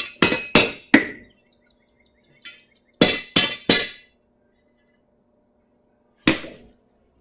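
Hand hammer striking hot sword steel on an anvil: a quick run of about four ringing blows, a pause, three more about three seconds in, and a single blow near the end.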